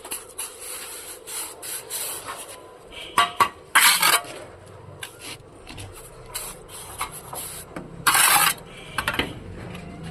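Mason's steel trowel scraping and spreading cement mortar while laying bricks, with light taps and clinks; two loud half-second scrapes about four and eight seconds in.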